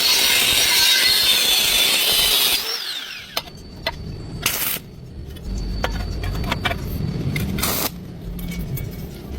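A power tool running loudly, then switched off about two and a half seconds in and winding down with a falling whine. Scattered clicks and knocks follow, with two short noisy bursts.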